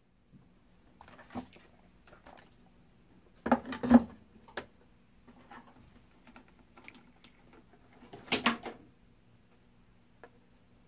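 Clicks and clatter of test leads, alligator clips and a small capacitor being handled and clipped onto a capacitance meter, in scattered bursts with the loudest clatter about four seconds in and again about eight seconds in. A faint steady hum runs underneath.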